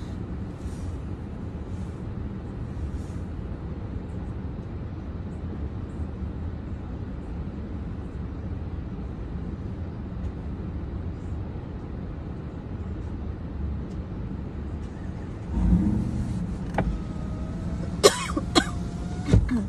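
Car idling, a steady low hum heard inside the cabin. About three-quarters of the way through comes a low thump, then a few sharp clicks near the end.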